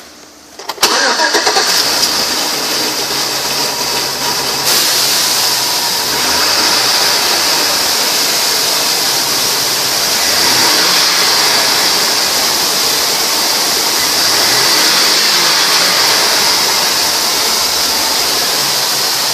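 2006 Chevy Avalanche's 5.3-litre V8 cranking and catching about a second in, then idling steadily, with a hiss that grows louder about five seconds in.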